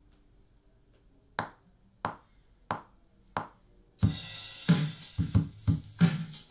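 Four sharp, evenly spaced clicks counting in, then a drum beat with kick drum and hi-hat starts about four seconds in.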